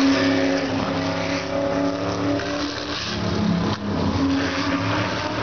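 Several USAC Silver Crown race car engines running together at a steady, slow pace-lap speed, their tones overlapping at different pitches. One engine's note rises and swells briefly a little past halfway.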